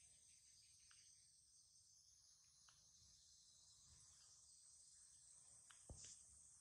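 Near silence, with a faint steady high-pitched insect chorus. A few soft ticks, and a sharper click about six seconds in.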